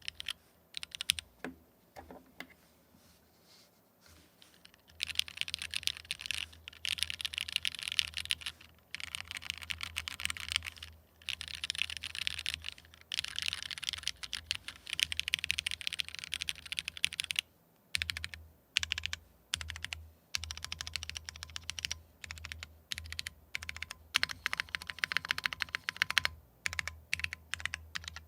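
Typing on a custom 60% mechanical keyboard with lubed Cherry Nixie switches in a brass plate and ABS keycaps. A few separate keystrokes come first, then from about five seconds in a fast, continuous run of key clacks broken by short pauses.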